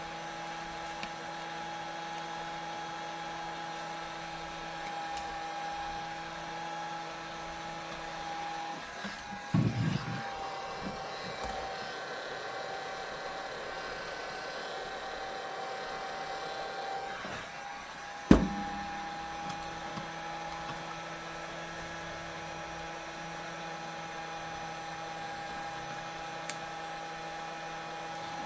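Hot-air heat gun running with a steady motor hum. There is a short clatter about ten seconds in and a sharp click about eighteen seconds in; the lower part of the hum drops away between them.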